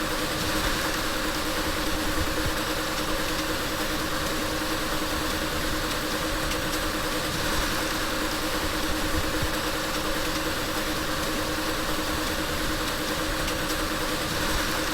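Car engine idling steadily, an even hum with no revving.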